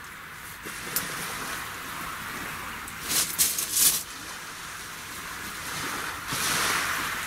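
Steady hiss of surf and wind along the shore. It swells briefly about three seconds in, and again for a longer stretch near the end.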